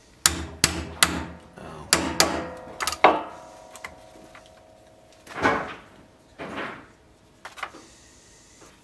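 A steel hammer striking a four-prong pricking iron through a leather strap into a wooden bench board to punch stitching holes. There are about seven sharp blows in the first three seconds, and the last one leaves a short metallic ring. A few softer knocks and a click follow as the tools are set down and the strap is handled.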